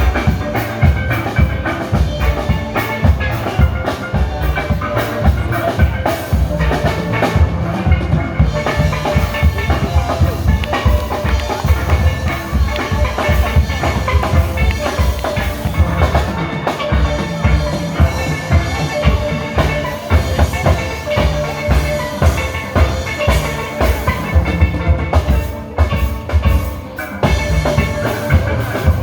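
Steel band playing: steelpans carrying a melody over a drum kit with a steady, driving beat.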